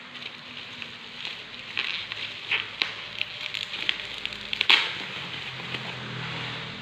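Plastic bubble wrap crinkling and crackling as it is handled and pulled off a packed item, with irregular clicks and one sharp crackle near the middle.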